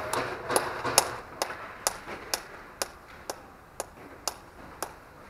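A steady series of sharp taps, about two a second, loudest early and gradually fading.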